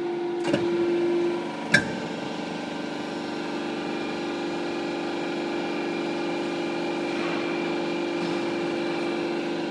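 Hydraulic press's pump unit running with a steady hum while the ram strokes. A sharp click about two seconds in is the loudest moment.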